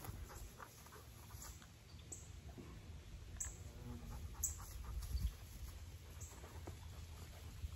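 German shorthaired pointer panting faintly over a steady low rumble, with a few faint clicks.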